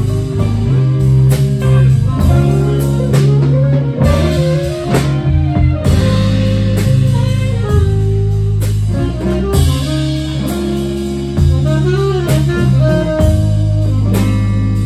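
Live band playing an instrumental passage: electric guitar, bass and drum kit, with saxophones playing melodic lines over them.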